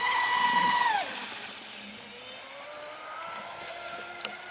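Radio-controlled electric speedboat's motor whining at high throttle, then dropping sharply about a second in as the throttle is cut, followed by a fainter whine that slowly rises again. A short click near the end.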